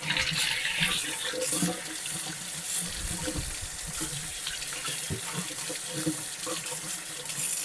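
Kitchen faucet running into a steel sink, the stream splashing over vegetables being rinsed and rubbed by hand under it.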